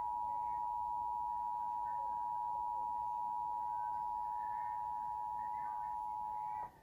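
Emergency Alert System attention signal: two steady tones of 853 and 960 Hz sounding together at a constant level. It cuts off suddenly near the end, marking the end of the alert tone in a required monthly test.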